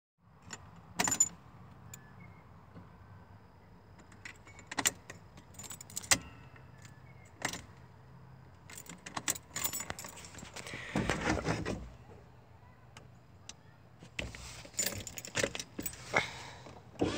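Keys on a ring jangling and clicking in scattered short bursts, with quieter gaps between and a longer rattling stretch a little before the middle.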